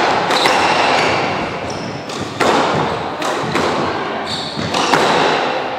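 Squash rally: the ball is struck by rackets and smacks off the court walls, several sharp impacts ringing in the enclosed court, with short squeaks of shoes on the wooden floor between them.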